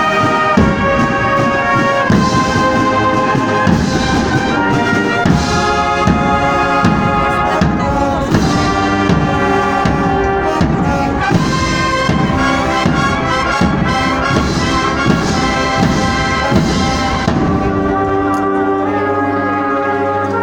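Spanish agrupación musical, a brass-and-drum band, playing a processional march: trumpets and trombones play the melody over a steady drum beat. About three seconds before the end the high brass drops out and lower brass holds sustained notes.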